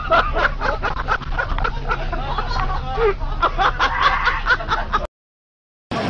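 Children shouting excitedly over one another inside a school bus, over a steady low drone from the moving bus. It cuts off abruptly about five seconds in, leaving a short silence.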